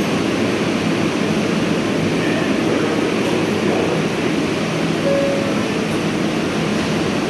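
R142A subway train standing in the station with its doors open, its ventilation and onboard equipment running with a steady hum over the platform's echoing din.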